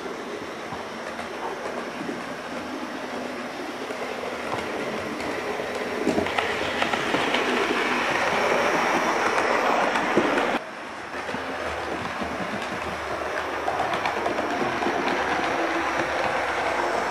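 00-gauge model GWR autotrain (small tank engine with autocoaches) running along its track, a steady rattling clatter of wheels on rail. It grows louder as the train passes close, drops suddenly about ten seconds in, then builds again.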